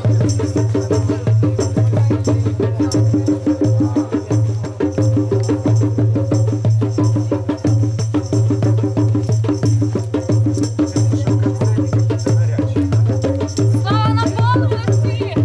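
Folk-style music with fast, steady percussion over a low droning pulse, and a voice rising briefly near the end.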